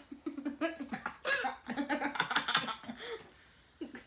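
A person's voice making a quick run of short non-speech vocal sounds, tailing off about three seconds in.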